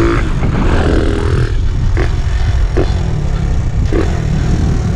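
Honda XRM 125 motorcycle's single-cylinder four-stroke engine, bored out to 57 mm, running as the bike is ridden, with heavy wind rumble on the microphone and a few short knocks.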